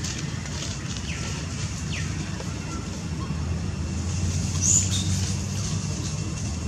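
Steady low outdoor rumble with a few brief high chirps; the sharpest chirp comes about two-thirds of the way through.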